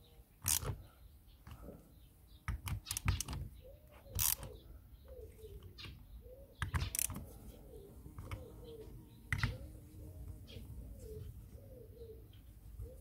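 Scattered sharp clicks and knocks, some in quick runs, from a ratchet and metal parts as the bolts of the pressure washer's pump head are tightened. From about five seconds in, a bird calls over and over with a short low rise-and-fall note.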